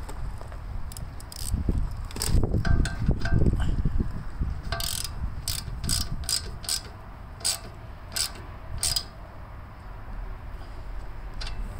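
Ratcheting wrench clicking while the fitting under a fuel sediment bowl is tightened: about eight sharp clicks over some four seconds, starting near the middle, after some low rumbling from handling.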